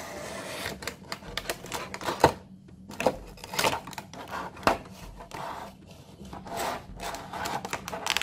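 Clear plastic packaging insert of a Funko Pop vinyl figure box scraping as it slides out of the cardboard box, then crackling and clicking as hands handle the thin plastic, with several sharp clicks.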